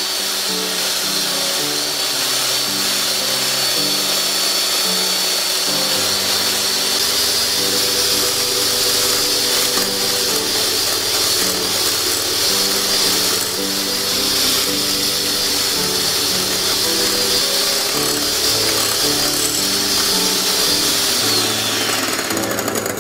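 Electric hand mixer running steadily, its beaters whipping egg whites into meringue in a glass bowl, with a high whine that falls in pitch as the mixer slows near the end. Background music plays underneath.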